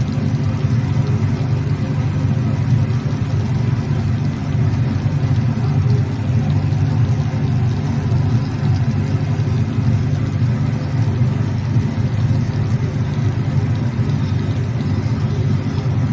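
Steady, loud low rumble.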